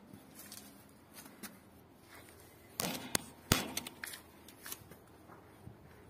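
A quick cluster of sharp clicks and knocks about three seconds in, the loudest a single sharp knock, with a few lighter clicks after it.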